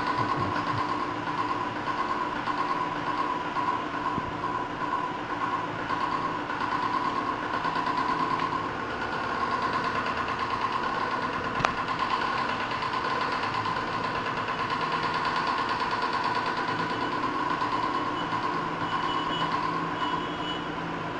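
Steady electrical buzzing hum from an electric facial machine whose electrode wands are held to the cream-covered skin, with one brief click about halfway through.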